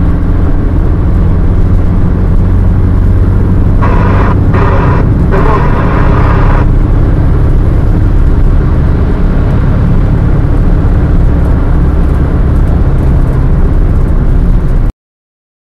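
Car engine and tyre noise at highway speed heard inside the cabin through a dashcam microphone: a loud, steady drone. It cuts off suddenly near the end.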